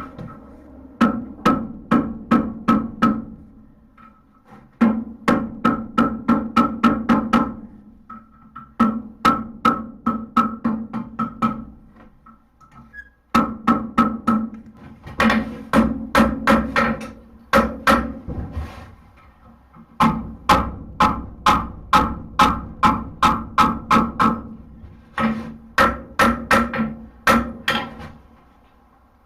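Hand hammer striking hot steel on an anvil while forging a horseshoe into a hoof pick, in runs of quick blows about four a second with short pauses between them; the anvil rings with each blow.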